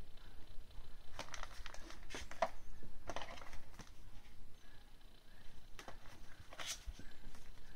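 Large game cards and their clear plastic wrapping being handled: crinkling and rustling in several short bursts, the loudest near the end.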